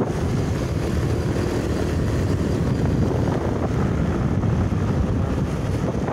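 Steady wind rumble buffeting the microphone while riding along a road, with a vehicle's running noise underneath.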